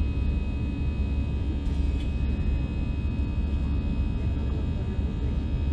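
Cabin noise inside an Airbus A320 climbing out after takeoff: a steady jet-engine rumble heard through the fuselage, with several steady tones ringing over it.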